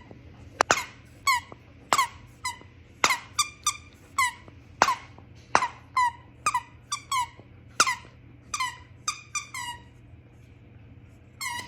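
A squeaky dog toy squeezed over and over: about twenty short, sharp squeaks in irregular quick runs. They stop about ten seconds in, and there is one more squeak near the end.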